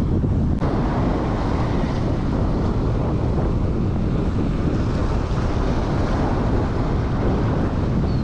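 Wind buffeting the microphone over waves washing and splashing against the granite rocks of a jetty, a steady rush of noise.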